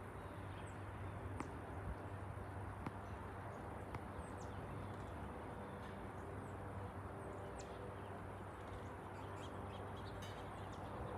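Faint, steady low rumble of an Airbus jet airliner passing high overhead, with birds giving frequent short, high, falling chirps.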